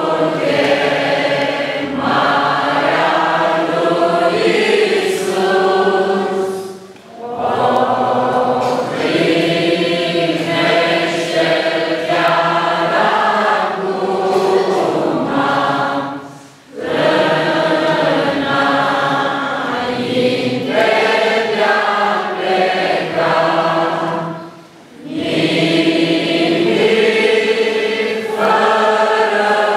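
A congregation singing a hymn together in long sustained phrases. There is a brief pause for breath between lines about every eight or nine seconds.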